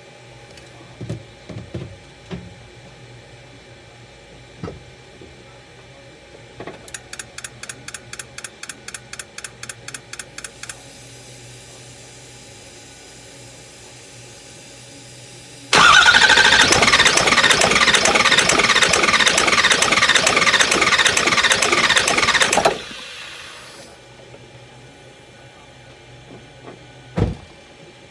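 Ford 6.0 Power Stroke diesel in a no-start: about four seconds of evenly spaced clicks, roughly four a second, taken for the injectors clicking. Then the starter cranks the engine for about seven seconds without it firing, and the cranking stops suddenly.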